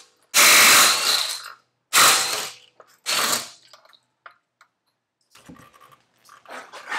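Impact wrench loosening a Porsche 997 Turbo's wheel bolts in three bursts, the first about a second long and the other two shorter. Faint knocks follow near the end as the wheel is taken off by hand.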